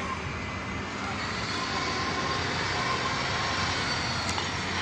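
Steady engine noise, an even rumble and hiss with a faint high whine over it.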